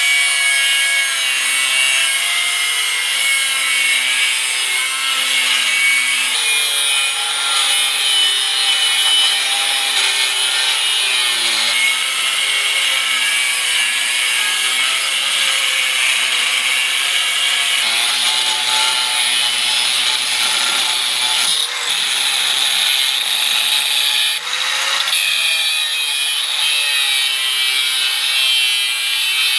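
Continuous abrasive grinding on a steel knife blade, with a pitched whine that wavers up and down throughout. Two brief breaks come about three-quarters of the way through.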